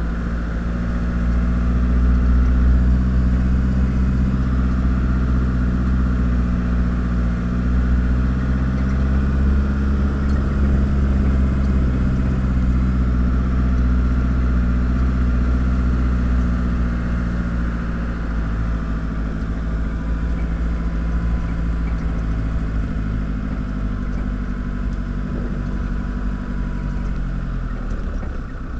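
Open-sided safari vehicle's engine running steadily as it drives along a track through tall grass, with a low rumble beneath. The engine note rises slightly about ten seconds in and drops a little near the end.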